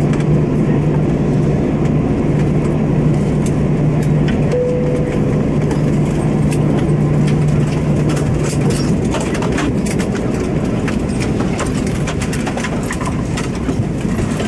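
Airliner cabin noise in a parked Airbus A321: a steady rumble with a low hum that fades out about nine seconds in. A single short chime sounds about four and a half seconds in, followed by scattered clicks and knocks from the cabin.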